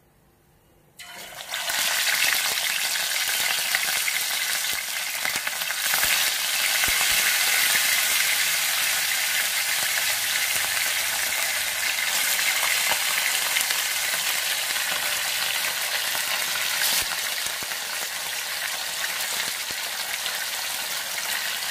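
Fish pieces frying in hot oil in a pan: a steady sizzle that starts up about a second in.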